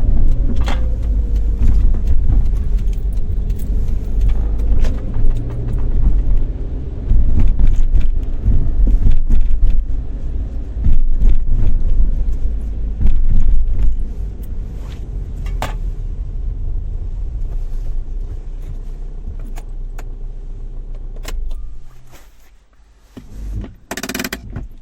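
Car interior: engine and road rumble with scattered clicks and rattles as the car slows, easing to a quieter steady idle. The engine is switched off about 22 seconds in, followed near the end by a brief jingle of the ignition keys.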